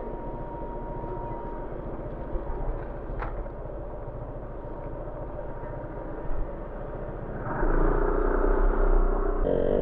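Motorcycle engine idling steadily, then revving up and getting louder as the bike pulls away, about seven and a half seconds in.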